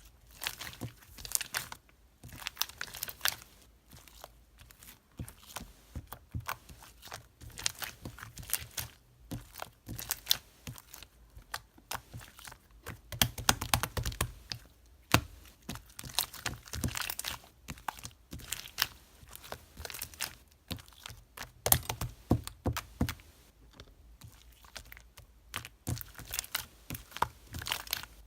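Crinkling and crackling handling sounds: irregular runs of short, sharp crackles and clicks with brief lulls between them, busiest around the middle and again near the end.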